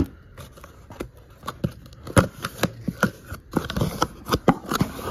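A taped cardboard shipping case being opened by hand: an irregular run of scrapes, rustles and sharp cardboard snaps, the loudest about two seconds in.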